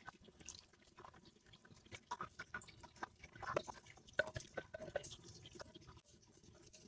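Thick chicken gravy pouring from a glass bowl into a glass baking dish, with a rubber spatula scraping the bowl. It makes faint, irregular little plops and scrapes.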